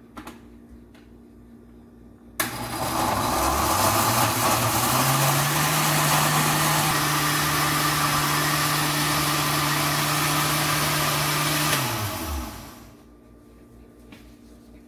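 Countertop blender grinding soaked red chillies, coriander seeds, onion, tomato and coconut with a little water into a wet masala paste. It switches on suddenly about two seconds in, the motor climbs to speed over a couple of seconds, runs steadily for about nine seconds, then winds down.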